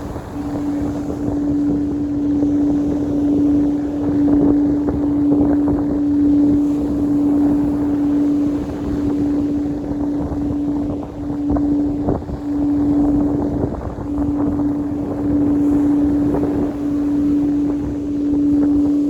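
A singing bowl held in one steady, pure tone that swells and dips slightly every second or two, under heavy wind buffeting the microphone.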